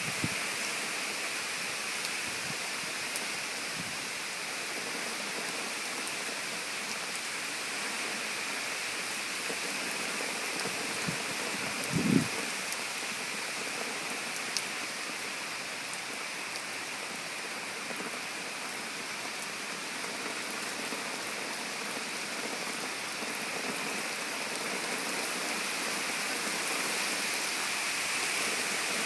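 Heavy rain coming down hard in a steady downpour, growing a little louder near the end, with a brief low thump about twelve seconds in.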